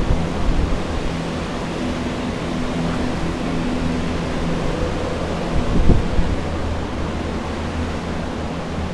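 Steady rushing noise of floor air movers (carpet dryers) running to dry out flood water, with a low hum under it. A low thump about six seconds in.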